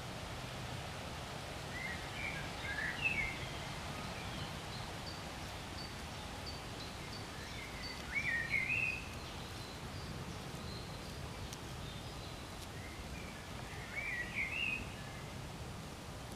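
A songbird singing three short warbled phrases about six seconds apart, over steady low outdoor background noise.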